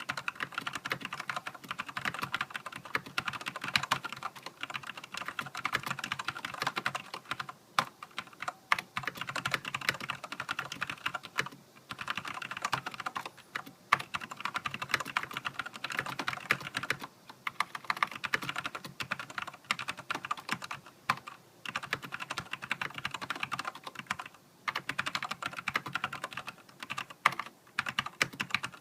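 Fast typing on a Filco Majestouch mechanical keyboard with Cherry MX Black linear switches and heavy keycaps: a dense run of key clacks in bursts, with a few brief pauses.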